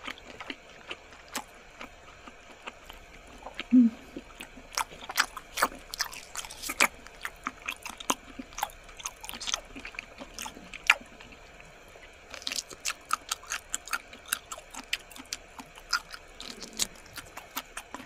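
Close-miked mukbang eating sounds: squid being bitten and chewed, a rapid, irregular run of wet clicks and smacks. A short low hum comes about four seconds in.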